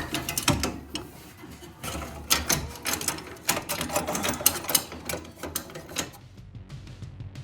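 Rapid, irregular clicking and clattering of metal parts and hand tools being handled at a workbench, which cuts off about six seconds in.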